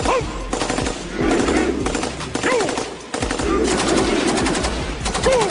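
Machine gun firing long rapid bursts, the shots closely and evenly spaced, heaviest in the second half.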